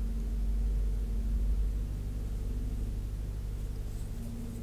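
A steady low hum with faint constant tones above it, unchanging throughout, with a faint tick near the end.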